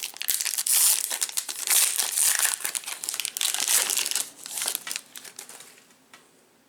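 Trading card pack being opened by hand, its wrapper crinkling and crackling. It is dense for the first four seconds or so, then dies away in a few scattered crackles.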